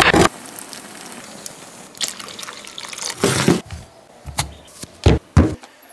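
Water running from a tap, cut off just after the start, then a few brief noises and two short, sharp knocks near the end.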